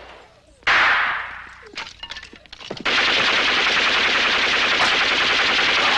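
Gunfire in a film shootout: one loud gunshot about half a second in that rings away over a second, a few scattered faint knocks, then from about three seconds in a steady run of rapid automatic gunfire.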